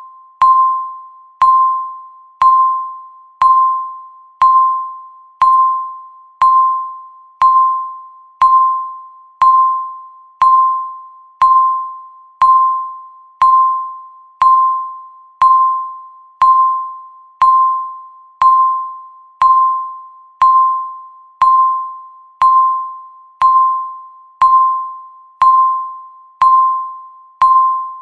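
Countdown timer beep: one short, bell-like tone struck once every second, each starting sharply and dying away before the next, marking each second left on the count.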